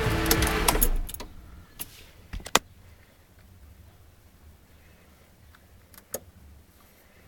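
Holden VZ Commodore SV6's 3.6-litre V6 running, then shut off about a second in, the sound cutting out suddenly. A few sharp clicks follow in the quiet.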